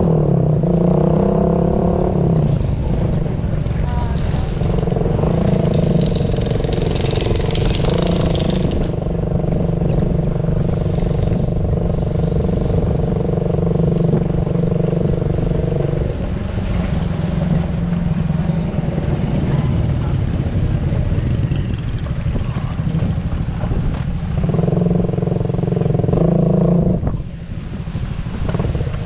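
A vehicle's engine running, heard from close by. Its pitch holds steady for several seconds at a time and shifts every few seconds as the speed changes, with a brief dip in loudness near the end.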